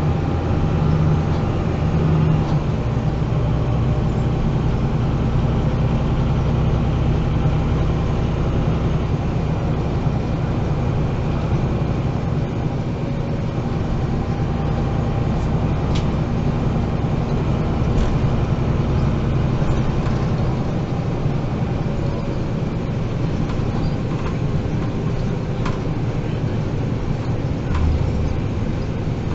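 Inside a MAN NG 313 articulated city bus under way: its diesel engine runs with a steady low drone. The deepest part of the engine note eases about halfway through. A few faint clicks come now and then.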